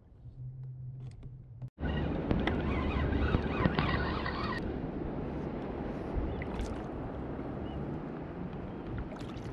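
Wind on the microphone and water around a fishing kayak, starting abruptly about two seconds in, with a spinning reel being cranked for a couple of seconds while a hooked fish is brought up.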